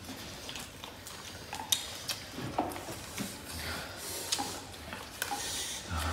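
People eating with their hands: irregular small clicks, smacks and crackles of chewing and of fingers tearing apart fried chicken and picking at rice.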